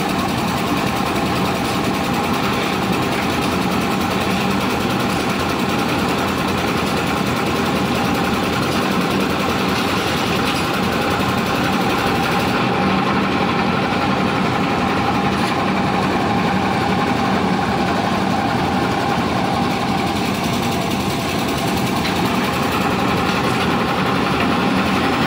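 Stationary diesel engine of a lift-type concrete mixer machine running steadily under load while the mixer works, a constant engine drone with a steady hum.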